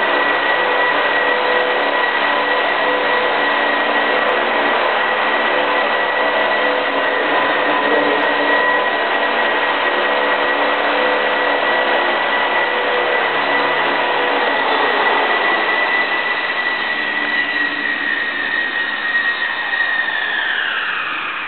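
Radio-controlled model helicopter on King II mechanics, its motor and rotor running with a steady high whine over a whirring rotor noise while it hovers. Near the end the whine sweeps down in pitch as it lands and spools down.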